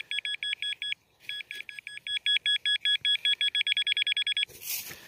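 Nokta pinpointer beeping as its tip is worked into the dig hole, signalling metal close to the probe. A short run of beeps, a brief pause, then a faster run of about nine or ten beeps a second that stops near the end.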